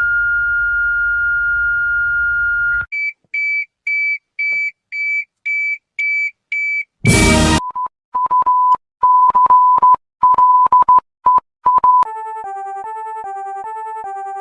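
Sequence of electronic emergency-alert tones. It opens with a steady single tone over a low hum for about three seconds, then a run of evenly spaced short high beeps, about two a second. After a brief harsh burst of noise comes a lower tone pulsing on and off irregularly, and in the last couple of seconds a two-pitch warble alternating steadily.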